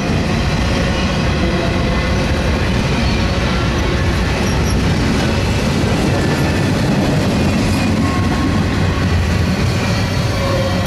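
Double-stack intermodal well cars rolling past close by: a steady, loud noise of steel wheels running on the rails.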